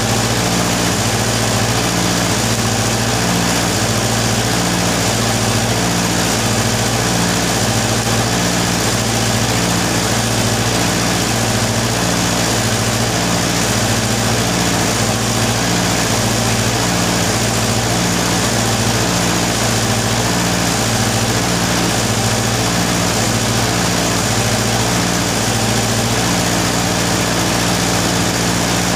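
Steady, loud engine-like machine drone with a slow regular pulse about once a second, running on unchanged while stick-welding on a tractor track roller starts and stops.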